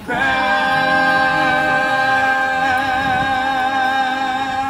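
Mixed group of men's and women's voices singing a cappella, holding one long chord of a Christian hymn for nearly five seconds with a slight waver. The chord dies away near the end, as the song's closing note.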